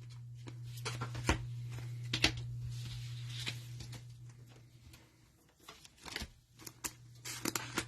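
Trading cards and pack wrappers being handled: scattered clicks and short rustles over a steady low hum.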